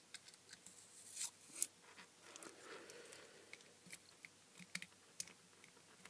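Faint small clicks, scrapes and crackles of a small screwdriver working the screws of a plastic USB electronics case and of the case being handled and pried open, with one sharper click about a second and a half in.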